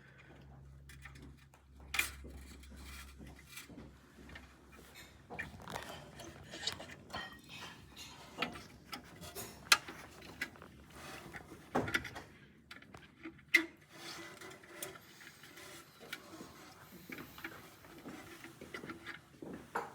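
Irregular small clicks, taps and clinks of hand tools and furnace parts being handled during disassembly of a dental press furnace. A few sharper knocks are scattered among them.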